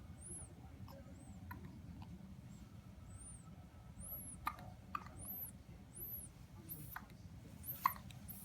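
Several short, sharp hiccups spaced a few seconds apart, the loudest near the end, with faint high-pitched chirps in between.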